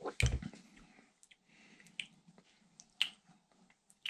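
A plastic squeeze sport bottle being handled and sipped from: a low bump just after the start, then scattered small clicks and squishy sounds.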